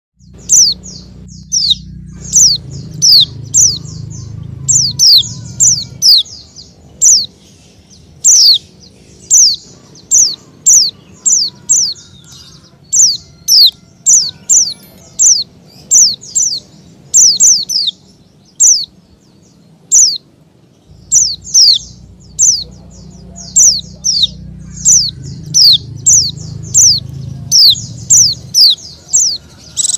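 A bird calling over and over: loud, short, high chirps that fall in pitch, about two a second without a break.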